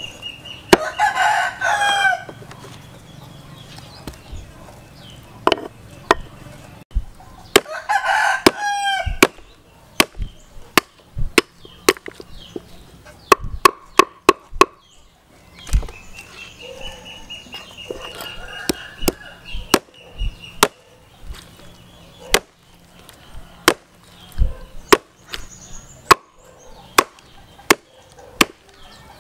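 Hammer blows chopping through a beef oxtail on a wooden chopping block: sharp knocks, irregular, about one a second. A rooster crows twice, about one second in and again about eight seconds in.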